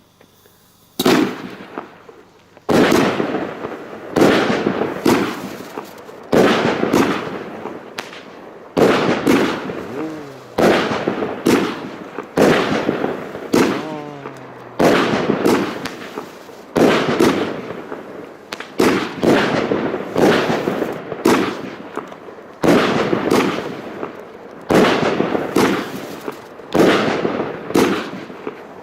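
A 25-shot, 30 mm consumer firework battery (Funke Argento 'Blütenstaub') firing shot after shot, a sharp bang about every one to one and a half seconds. Each bang fades out before the next one.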